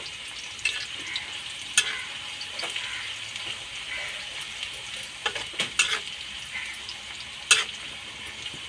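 Sliced onions and green chillies sizzling in hot oil in an iron kadhai, stirred with a metal spatula that scrapes and clicks against the pan now and then, with one sharper clack near the end.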